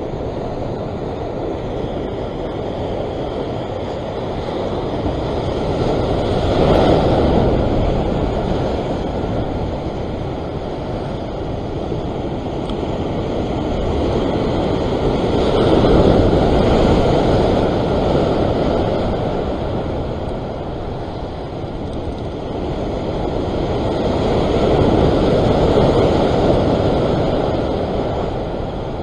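Ocean surf washing in rough seas, swelling louder three times about nine seconds apart as waves come in, with wind buffeting the microphone throughout.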